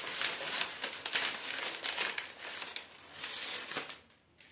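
Thin plastic carry bag crinkling and rustling as hands rummage in it, with many small crackles; it dies away about four seconds in.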